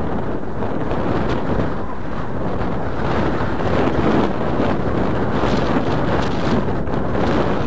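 Wind buffeting the microphone in a steady rush, with waves washing against the seawall beneath it.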